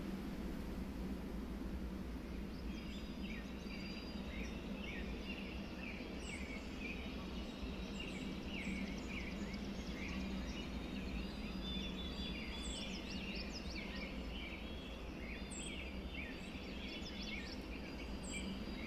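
Outdoor nature ambience: a steady low background hum, joined a few seconds in by a dense chorus of short, high chirping calls that keeps going throughout.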